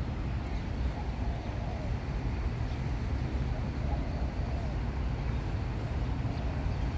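Steady low rumble of road traffic in a city, with no single vehicle standing out.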